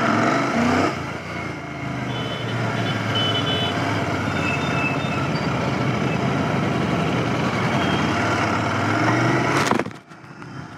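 Royal Enfield Continental GT 650's parallel-twin engine running under way, with steady wind and road noise over it. Near the end a click, and the wind noise drops sharply as the rider's helmet visor is snapped shut.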